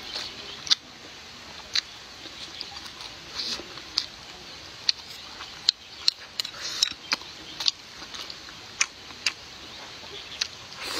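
Close-miked chewing of a mouthful of food, wet mouth clicks and smacks coming irregularly, several times a second at the busiest moments.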